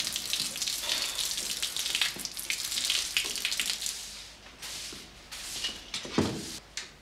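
Water spattering and trickling from a leaking metal bucket, with many small drop clicks, dying away about four seconds in. A single dull knock about six seconds in.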